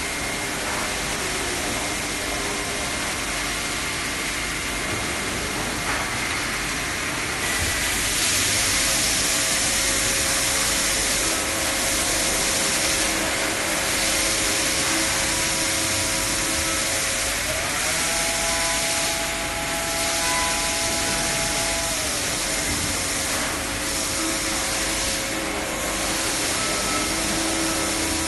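Parker CNC drilling and milling machining centres running on aluminium profiles: a steady mechanical hiss that gets louder about seven seconds in and swells briefly now and then. Under it a steady motor whine steps up in pitch past the middle, holds for a few seconds, then drops back.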